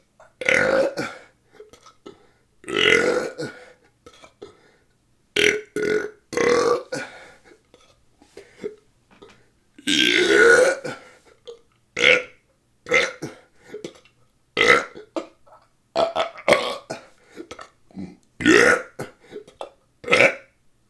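A person belching on purpose over and over: a dozen or more short burps with brief silent gaps, the longest about ten seconds in.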